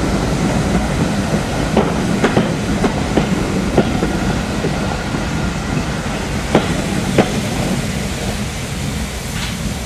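Train hauled by 51456 rolling slowly into a station: a steady low rumble with sharp, irregularly spaced clicks of wheels over rail joints, easing off toward the end.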